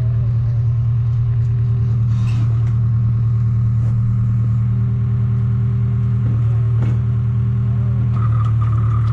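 A large engine running steadily at an even speed, with a few faint knocks over it. A higher-pitched whine joins near the end.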